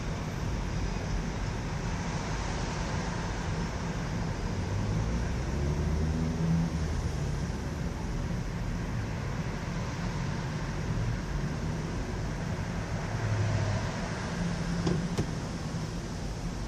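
Subway train running steadily over the Williamsburg Bridge: a continuous low rumble and rail noise. Low humming tones swell twice, and there is a sharp click near the end.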